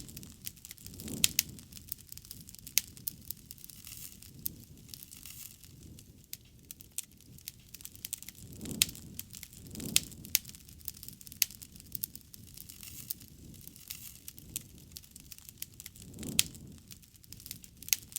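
Campfire burning: wood crackling with irregular sharp pops, and a few low, soft swells.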